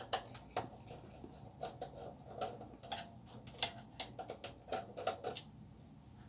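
Screwdriver working a screw on the side frame of a Canon LBP2900 / HP LaserJet 1020-type laser printer: a run of small, irregular clicks and taps of metal and plastic that stops about five seconds in.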